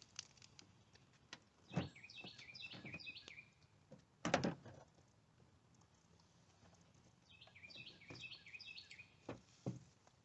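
A songbird singing twice, each time a quick run of high chirping notes, with a few short thumps in between, the loudest about four seconds in.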